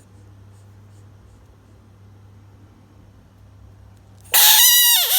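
Faint steady hum, then about four seconds in a loud, high, wailing cry that lasts about a second and bends down in pitch at its end.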